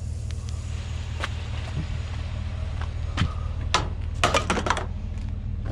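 A vehicle engine idling with a steady low rumble. Over it come a few separate clicks, then a quick rattle of clicks about four seconds in.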